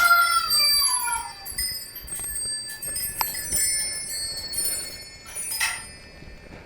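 Metal chimes ringing, with a few light strikes setting off high ringing tones. The loudest part is at the start: a stack of tones that rises and then falls, fading out within the first second and a half.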